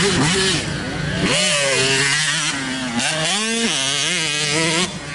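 Two-stroke dirt bike engine revving up and down with the throttle as the bike passes, its pitch rising sharply about a second and a half in and again about three seconds in, then dropping off near the end.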